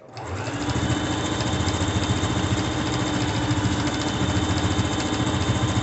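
Singer electric sewing machine running steadily, zigzag-stitching the edge of knit fabric strips for a ruffle. It starts up and picks up speed over about the first second, then holds an even, fast needle chatter.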